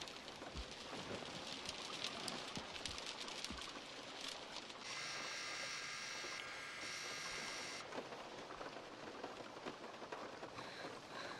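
Faint steady rain with the crackle of many small drops. About five seconds in, a high steady tone sounds over it for about three seconds.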